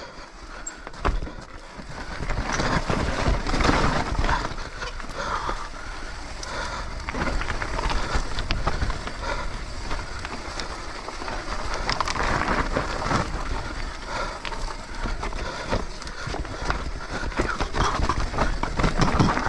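Trek Slash 7 mountain bike descending a loose shale-and-dirt trail: continuous tyre noise over gravel and dirt with rapid clicking and rattling of stones and the bike's parts.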